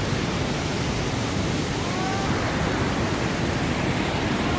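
Water of a large waterfall falling and rushing steadily, a constant even noise.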